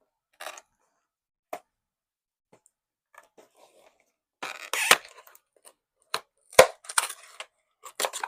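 Small plastic camera stand and its packaging being handled: scattered light clicks and rustles, with a rustling burst about halfway through and a sharp plastic click a couple of seconds later.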